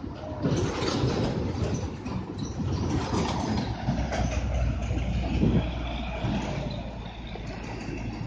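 Heavy diesel cargo trucks driving through a tight bend, their engines running with tyre and traffic rumble. A deep steady engine drone comes in about halfway through.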